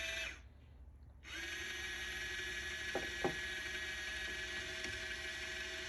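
Goser portable mini washing machine running at the bottom of a water-filled sink, a steady electric whir. It cuts out about half a second in and starts again about a second later.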